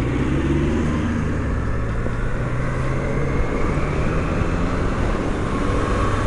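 Triumph Street Triple 660 S three-cylinder engine running as the motorcycle rides along, with wind noise rushing over the microphone. The engine note holds fairly steady and shifts a little about three seconds in.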